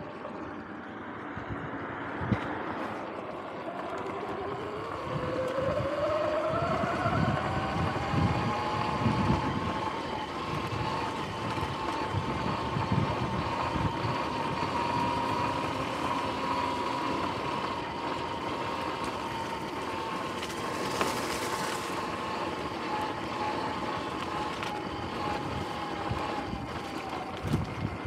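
Sur-Ron X electric dirt bike under way: the whine of its electric motor and chain drive climbs in pitch as it gathers speed a few seconds in, holds steady, and eases down near the end, over tyre rumble and wind on the microphone. A few sharp clicks stand out, the occasional clicking that the owner puts down to worn swing arm bearings.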